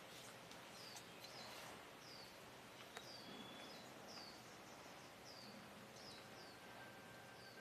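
Faint outdoor ambience with a bird repeating a short, high chirp that slides downward in pitch, a little more often than once a second.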